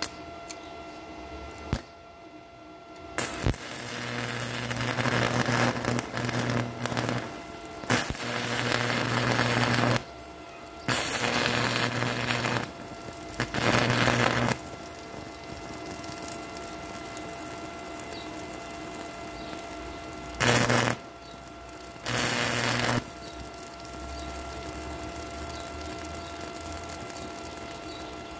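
Stick (shielded metal arc) welding: the electrode arc crackling and sizzling in several bursts of a few seconds each, with a low electrical buzz under each burst, then two shorter bursts about three-quarters of the way through.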